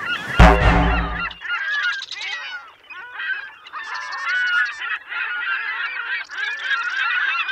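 A flock of birds honking and calling, many short overlapping cries at once. A loud low hit comes in about half a second in and lasts about a second.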